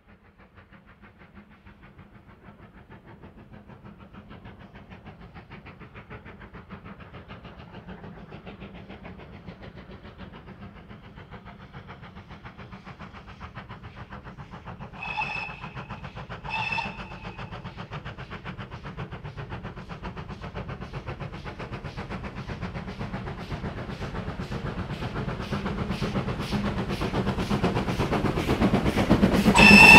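GWR 4200 Class 2-8-0 tank locomotive working a passenger train, its rhythmic exhaust beats growing steadily louder as it approaches. Its whistle gives two short toots about halfway through and sounds again, louder, right at the end.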